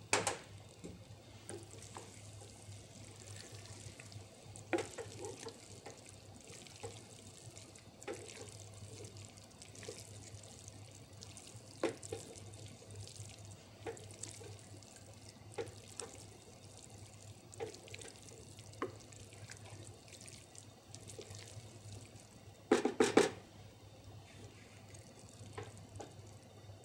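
A spoon stirring thick, creamy risotto in a saucepan, with scattered wet squelches and scrapes against the pan as butter and cheese are worked in. About 23 seconds in comes a louder short clatter of the spoon against the pan.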